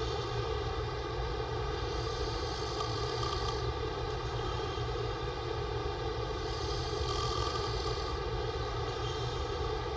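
A man's open-mouth snoring: slow breaths swelling about every four to five seconds over a steady droning hum.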